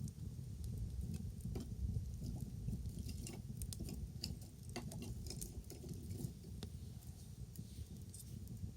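Wood fire crackling: frequent irregular snaps and pops, thickest around the middle, over a low steady rumble.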